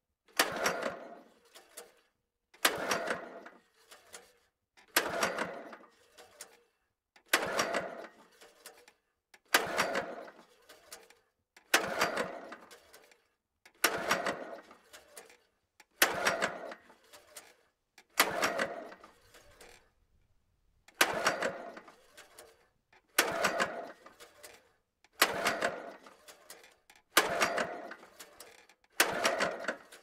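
Two-stroke lawn mower engine being pull-started again and again, about fourteen pulls roughly two seconds apart. Each is a short burst of cranking that dies away without the engine catching: the mower will not start.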